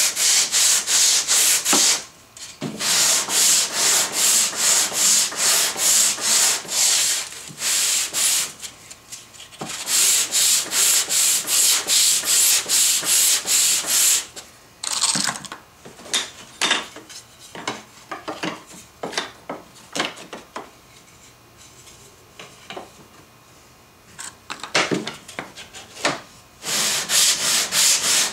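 Hand sanding: a sanding block with abrasive paper is pushed back and forth along Lyptus hardwood boards in quick, even strokes, about three a second, with a couple of short breaks. About fifteen seconds in, the strokes stop for some ten seconds of light clicks and knocks, and the sanding starts again near the end.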